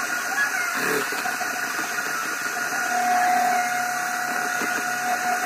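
Electric hand mixer running steadily, its beaters whisking in a container, a constant motor whine over a noisy hum.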